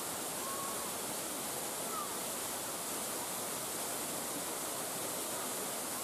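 Waterfall pouring over rock: a steady, even rush of falling water that does not change.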